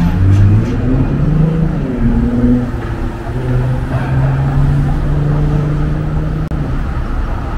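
Street traffic with a vehicle engine pulling away. Its pitch climbs in steps over the first two or three seconds, then holds steady for a few seconds before fading into the traffic hum.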